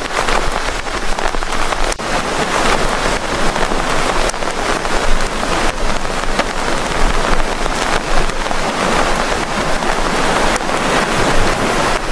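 Heavy rain pouring steadily, a dense hiss with many single drops striking close to the microphone.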